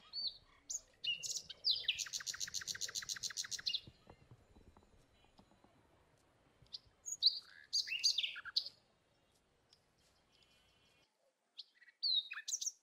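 Small birds chirping and whistling: a fast, even trill of about ten notes a second lasting nearly two seconds, then clusters of short chirps around eight seconds in and again near the end, over faint outdoor background noise.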